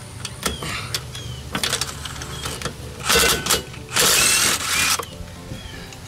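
Cordless DeWalt impact run in two short bursts about three and four seconds in, loosening a rear disc brake caliper bolt. Before the bursts come a few light metallic clinks of tools.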